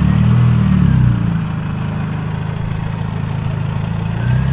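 Supercharged Mini Cooper S four-cylinder engine running at low speed as the car rolls slowly into a parking space: a little louder for the first second, then settling to a steady near-idle, with a short blip of throttle near the end.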